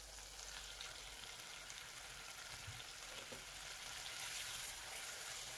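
Marinated chicken breast pieces sizzling in hot oil in a wok as they are stir-fried and turned with a wooden spoon: a steady, faint frying hiss that swells a little in the second half.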